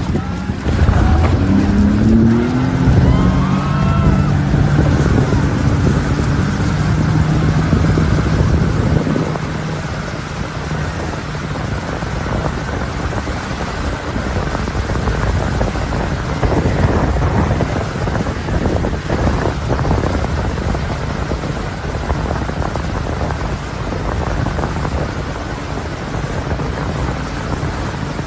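Motorboat engine running at speed while towing, with wind buffeting the microphone and water rushing in the wake. A steady engine hum is clear for about the first nine seconds, after which wind and water noise cover most of it.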